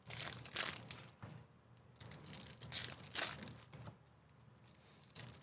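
Foil wrappers of Topps Chrome trading-card packs crinkling and tearing as the packs are ripped open, in several short bursts, then a brief lull near the end.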